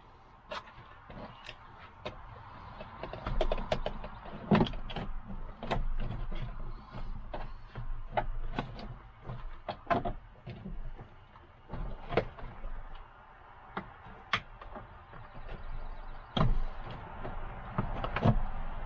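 Irregular clicks, taps and knocks of hand tools and parts being worked on a pickup truck's door as a tow mirror is fastened on.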